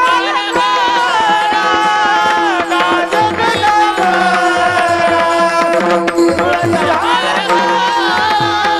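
Devotional kirtan singing: a male voice holding long, high, ornamented notes over a steady drone, with hand-drum strokes keeping the beat.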